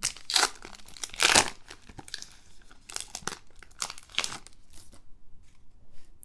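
The foil wrapper of a Bowman Heritage baseball card pack being torn open and crinkled as the cards are slid out, in irregular rips and rustles. The loudest tearing comes in the first second and a half, and it fades to light rustling near the end.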